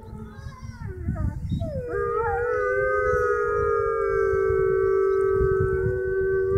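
A pack of Arctic wolves howling in chorus. After a second or two of lower, sliding calls, several voices join in long, held howls at different pitches that overlap.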